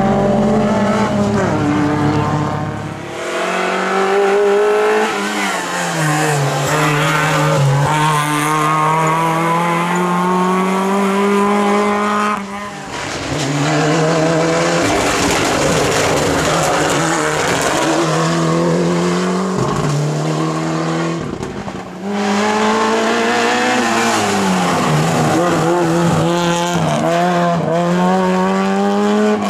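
Rally cars running flat out on a tarmac stage one after another. Each engine revs up and drops back with the gear changes and corners, with some tyre squeal.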